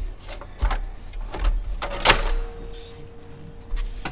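Metal exhaust parts clunking and scraping as the catalytic converter section is rotated and worked into position, with a sharper clank about two seconds in.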